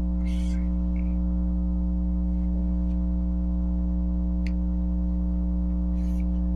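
Loud, steady electrical hum: a low buzz with a stack of evenly spaced overtones that never changes, with a few faint ticks over it.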